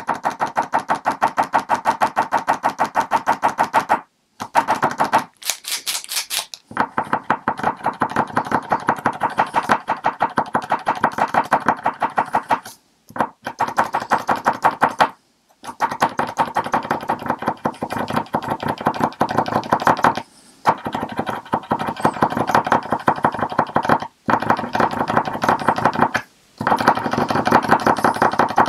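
New paint marker being pumped to bring ink to its tip: rapid, regular tapping, about five taps a second, broken by a few short pauses.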